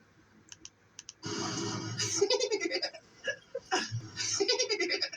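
A person laughing and giggling in rapid, pulsed bursts that start about a second in, after a few faint clicks.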